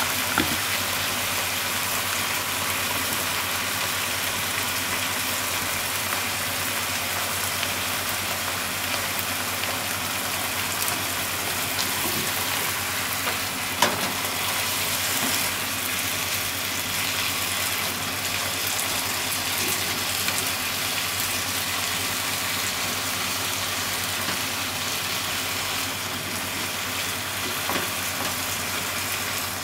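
Potatoes, shimeji mushrooms and minced meat sizzling steadily in a nonstick frying pan while being stir-fried with cooking chopsticks. A few sharp clicks of the chopsticks against the pan, the loudest about 14 seconds in.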